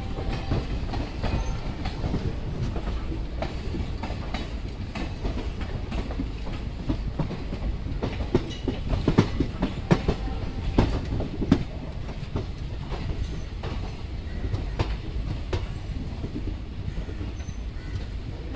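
Indian Railways passenger coach rolling over rail joints, heard from an open coach door: a steady low rumble with irregular clickety-clack of the wheels. The knocks come denser and louder about nine to twelve seconds in.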